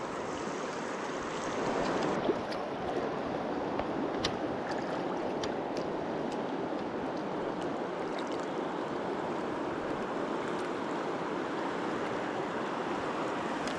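Fast water of the Deschutes River rushing through a riffle, a steady rush with a few faint clicks over it.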